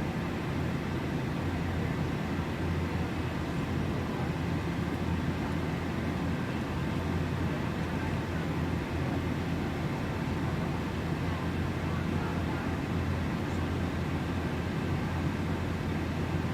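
Airliner cabin noise heard from inside the passenger cabin: a steady, even roar of the engines and airflow, strongest in the low range, with no change in level.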